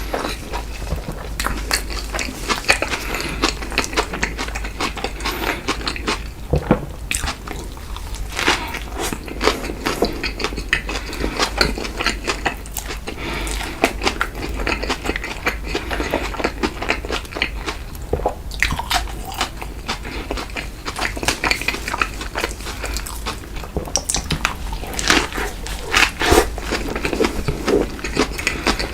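Close-miked mukbang eating sounds: a person biting, chewing and crunching fast food, with many crisp, irregular clicks of food and mouth.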